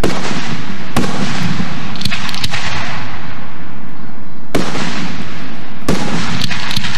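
Aerial firework shells bursting: four loud booms in two pairs about a second apart, the pairs some three and a half seconds apart, each trailing off in a long echoing rumble, with spells of crackling after the second and the fourth.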